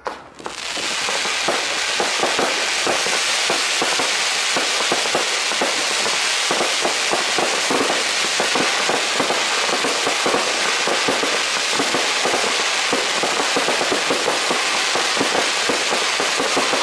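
Fireworks crackling: a dense, continuous crackle of countless small pops from crackling comets and glitter bursts. It begins abruptly and holds steady.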